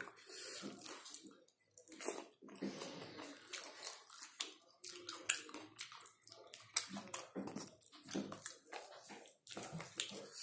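Close-mic mukbang eating: wet chewing and lip smacking as rice and meat curry are eaten by hand, with many short, sharp smacks.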